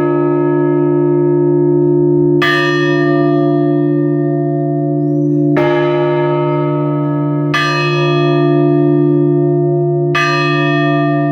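Orthodox church bells tolled for a funeral service: four separate strikes a few seconds apart, each ringing on and fading slowly over a steady low hum from the larger bell that carries between them.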